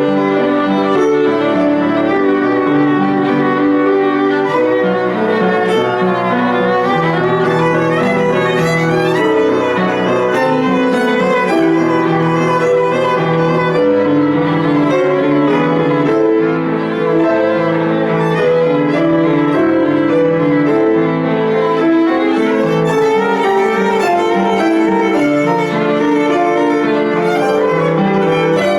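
Solo violin playing a classical piece, a continuous line of quickly changing notes over a piano accompaniment.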